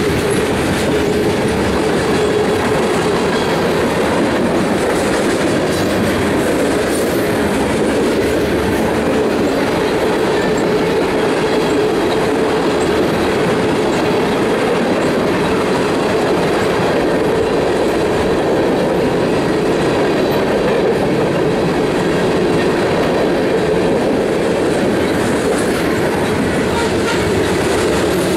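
Tank cars and covered hoppers of a freight train rolling past close by: steady, loud noise of steel wheels running on the rails.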